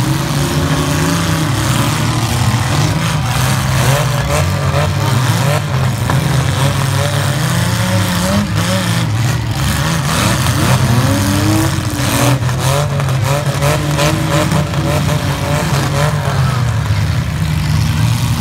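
Several demolition derby compact cars' engines running and revving, rising and falling in pitch, with a few sharp crashes of cars hitting each other.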